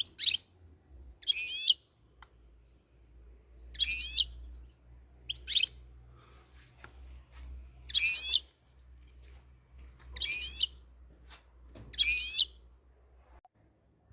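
European goldfinch (Moroccan goldfinch) singing: about seven short, rapid, high-pitched song phrases, one every second or two.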